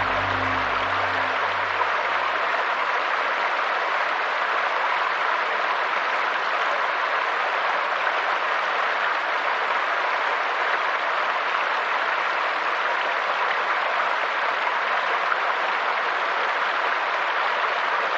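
Small rocky woodland stream running over stones: a steady rush of water. Low background music notes fade out in the first few seconds.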